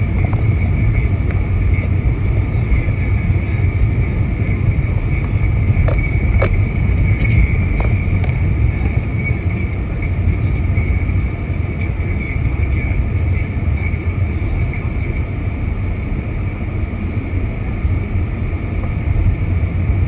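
Steady low vehicle rumble with a faint constant high whine over it. A few faint clicks about six to eight seconds in.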